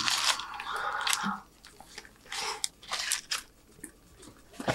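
A bite into a burger held in a paper wrapper, the wrapper rustling and crinkling for about the first second, followed by close-up chewing in short irregular bursts.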